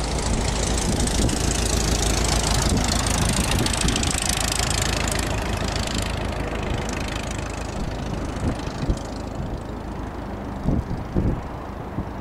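Steady rushing engine noise that is loudest in the first few seconds and then fades away. Toward the end, wind gusts buffet the microphone with low thumps.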